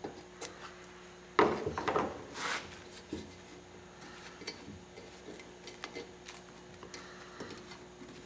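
Aircraft covering fabric being handled: rustling and light ticks as it is pulled up over the elevator frame's edge and rubbed down onto the glue. There is one sharp knock about a second and a half in, as the scissors are set down on the workbench.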